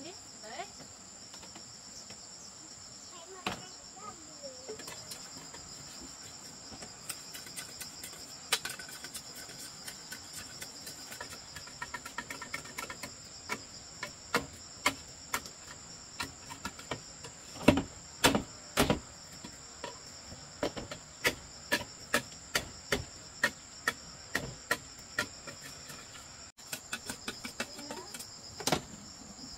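A steady, high chorus of insects, with a long irregular series of sharp knocks, about one or two a second, starting about a quarter of the way in and loudest about halfway through.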